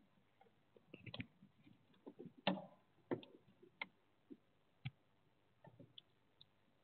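Faint, irregular clicks and light knocks from someone moving about at the altar and handling objects. The loudest comes about two and a half seconds in.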